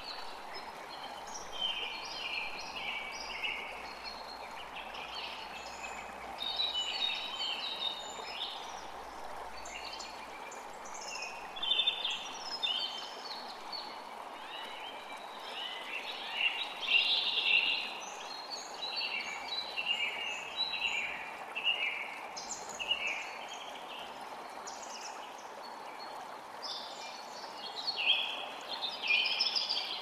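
Several songbirds chirping and singing in quick overlapping phrases, over the steady rush of a forest creek.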